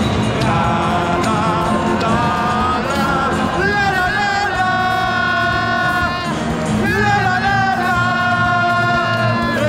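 Football crowd singing together in the stands, with fans close by singing loudly. Long held notes glide from one pitch to the next, and new lines of the song start about four and seven seconds in.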